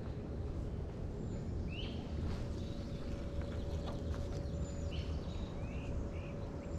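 Outdoor riverside ambience: a low steady rumble with a faint steady hum, and a few short bird chirps scattered through.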